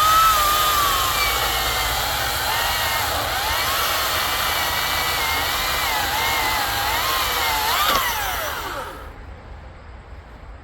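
Greenworks 82V battery chainsaw cutting through oak. Its motor whine wavers and sags in pitch as the chain bites under load, then winds down and stops about nine seconds in.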